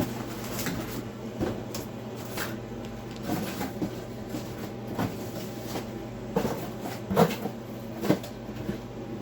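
An empty cardboard box being handled, giving scattered knocks and rustles over a steady low hum. The two loudest knocks come near the end.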